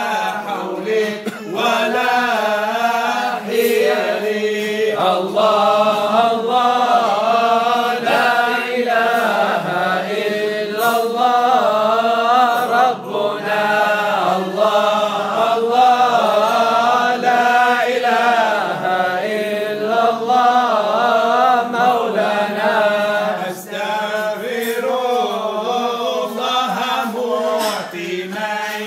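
Male chanting of a devotional Mawlid song, the melody wavering and ornamented, held continuously.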